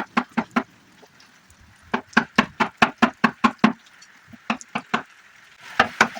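Hammer or mallet blows on wood, in runs of quick sharp knocks about three a second with pauses between. A steady hiss comes in near the end.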